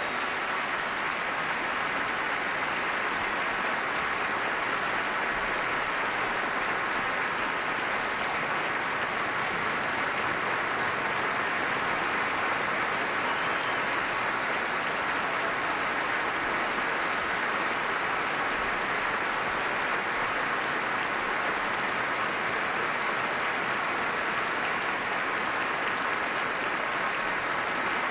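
Large audience applauding, a dense, even clapping that holds steady throughout.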